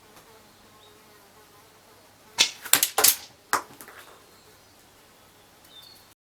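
Tokyo Marui L96AWS spring airsoft sniper rifle: a quick cluster of about six sharp clicks and knocks in just over a second, from its action and shot, over faint background noise. The sound cuts off suddenly near the end.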